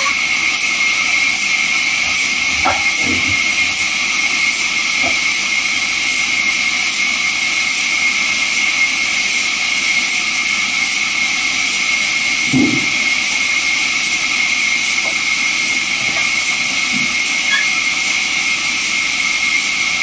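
Large vertical bandsaw mill cutting through a timber slab as it is pushed along the table: a steady, loud hiss with a strong high whine from the blade. A dull knock of the wood about two-thirds of the way through.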